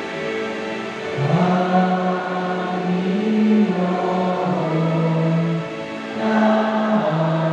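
A church choir singing a slow sacred song in long held notes over sustained instrumental accompaniment. The voices come in about a second in and sing two long phrases with a short breath between them.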